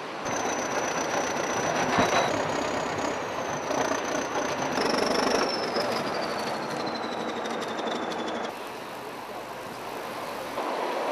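A tractor with a dozer blade working: its engine runs under a high, thin metallic whine that holds steady, then slides down in pitch, with a heavy knock about two seconds in. The sound drops off abruptly near the end.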